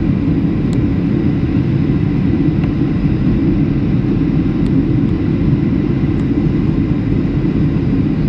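Steady low rumble of a passenger aircraft in flight, engines and airflow heard from inside the cabin.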